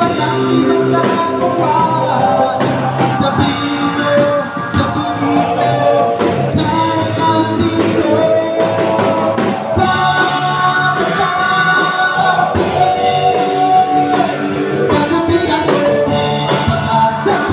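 Live amplified rock band playing: drum kit, electric guitars and a male singer. The sound turns brighter about ten seconds in.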